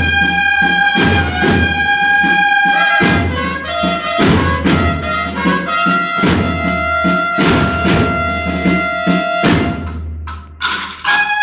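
Bugle and drum marching band playing: bugles hold long notes over steady drum strokes. The bugles drop out for about a second near the end, leaving a few drum beats, then come back in.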